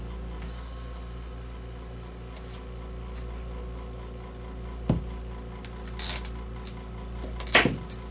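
Kitchen knife cutting through a raw butternut squash's thick, hard skin: a sharp knock about five seconds in, a short scrape about a second later, and the loudest knock with a scrape near the end as the top comes off and the blade meets the mat. A steady low hum runs underneath.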